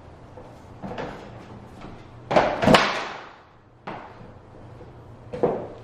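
Vinyl flooring planks being handled and set down on a hard surface: a few separate knocks and thuds, the loudest two close together about two and a half seconds in.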